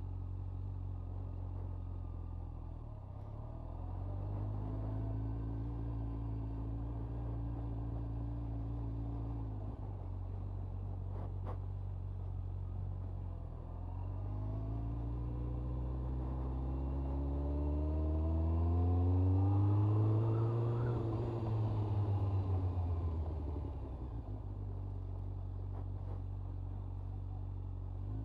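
2002 Honda CBR1100XX Blackbird's inline-four engine running at low road speed, heard through a lavalier mic inside the rider's helmet. The engine note holds steady, eases off briefly, then rises in pitch as the bike accelerates and drops back again near the end.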